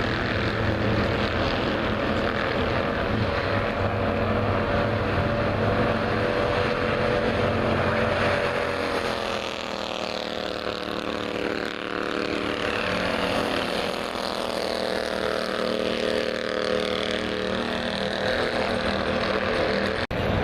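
Race car engines running at speed on an oval track, several engine notes overlapping, their pitch dropping and rising again as cars go by. The sound cuts out for an instant near the end.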